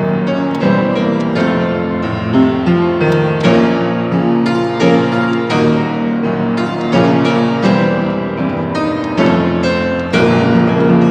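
Piano playing a fast, loud passage of dense chords, many notes struck each second without pause.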